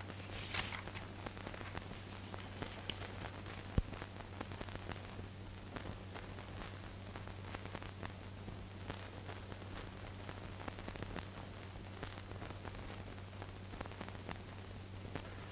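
Faint hiss and crackle of an old film soundtrack over a low steady hum, with one sharp click about four seconds in.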